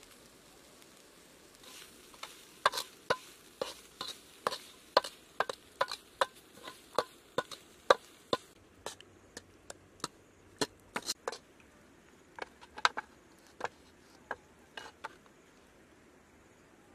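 Sharp knocks of a kitchen utensil during food preparation. They start about two seconds in, come two or three a second at first, then thin out and stop near the end.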